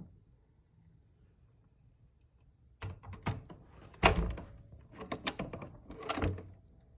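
Door swinging shut under its door closer: near silent at first, then clicks and knocks in the second half with two loud thuds as the door meets the frame and latches. The door is closing at a speed the owner calls perfect.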